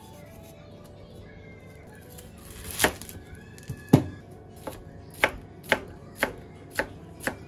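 A knife chopping on a cutting board: a string of sharp strokes starting about three seconds in and settling to roughly two a second, over soft background music.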